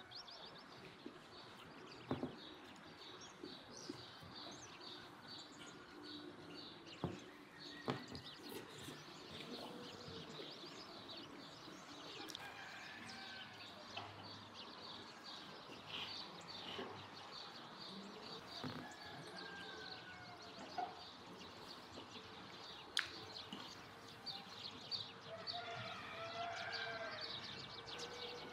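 Birds chirping and calling, faint and scattered, with a few sharp knocks now and then.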